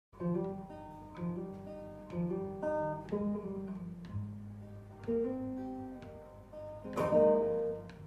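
Acoustic guitar playing a song's instrumental intro: picked notes about once a second, with a louder strummed chord near the end.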